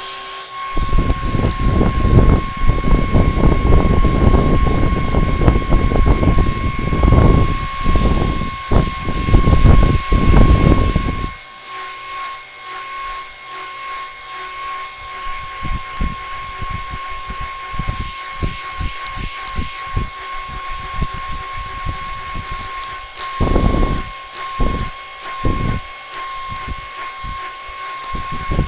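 Small electric motor running with a steady high whine and rushing air. Its blast buffets the microphone heavily for the first eleven seconds or so, then only in occasional short gusts.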